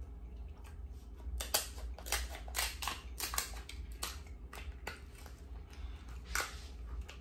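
Kitchen scissors snipping through a cooked king crab leg's shell: a series of irregular sharp snips and cracks as the shell is cut open.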